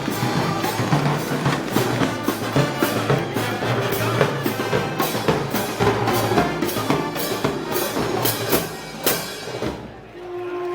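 Moros y Cristianos festival band music driven by heavy drums and percussion, with a steady even beat. It dies away about ten seconds in, and sustained wind tones start up near the end.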